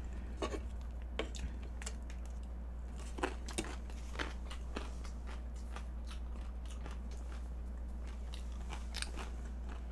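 Someone chewing food close to the microphone: a scatter of short, irregular mouth clicks and small crackles over a steady low hum.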